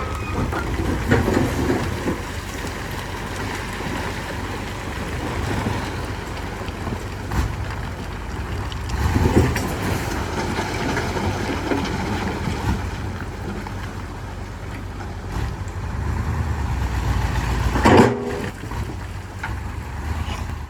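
Heavy diesel earthmoving machinery (bulldozer and dump truck) running steadily under load, with the engine note swelling a few times and a sharp metallic clank near the end.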